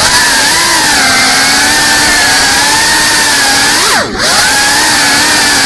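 GEPRC Cinelog 35 FPV cinewhoop's brushless motors and ducted propellers whining, the pitch wavering with the throttle. About four seconds in the pitch drops sharply and climbs straight back, as the throttle is chopped and punched again during a trick.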